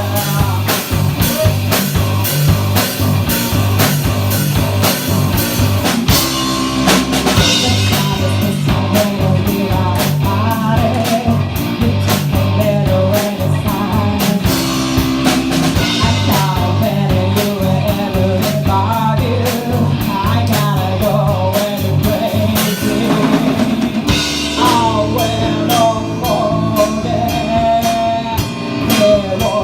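A rock-blues band playing a song: steady drum-kit beat, bass line and guitar, with a melodic lead line over it.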